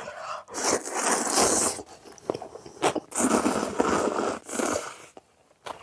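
Two long, loud slurps of ramen noodles being sucked up off a plate, each lasting about a second and a half, with short chewing sounds between them.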